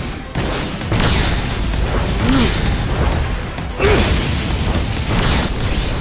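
Fight-scene music with a run of booming blast sound effects, about five hits a second or more apart.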